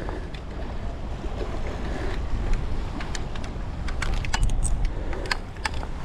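Wind buffeting the microphone in a steady low rumble, with scattered small metallic clicks and rattles that come more often in the last couple of seconds.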